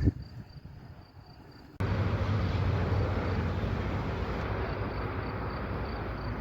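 Steady rushing outdoor noise, with no distinct events, that cuts in abruptly about two seconds in after a quieter start.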